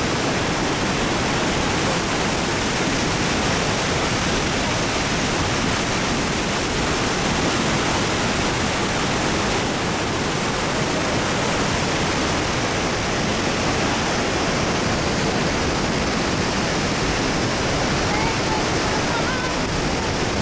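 Steady rush of a large waterfall, Iguazu Falls: an even, unbroken roar of falling and churning water.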